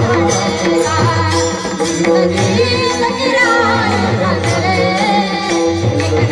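A woman singing a Hindi devotional song over a hand drum and jingling percussion, with steady held instrumental notes underneath. The sung line comes in about halfway through.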